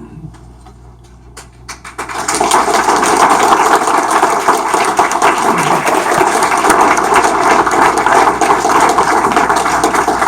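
Audience applauding, starting about two seconds in: a dense, steady clatter of many hands clapping.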